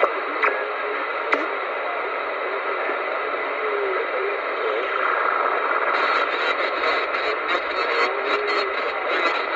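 CRT SS 9900 CB radio's speaker hissing with band static on receive in upper sideband, with faint wavering traces under the hiss. From about six seconds in, the static turns crackly with many short clicks.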